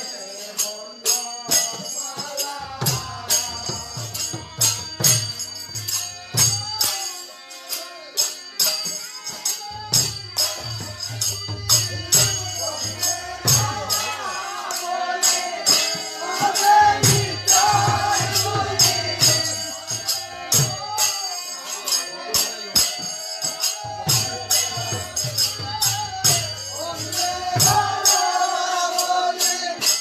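Bengali devotional kirtan: a group of voices chanting together over metal hand cymbals clashing in a steady beat. A deep drum comes in for stretches of a few seconds and drops out between them.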